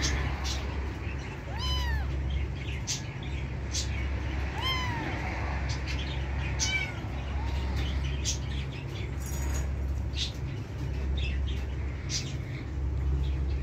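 A young Himalayan kitten meowing three times, a few seconds apart, each call rising and then falling in pitch, with the last one fainter. A steady low hum runs underneath.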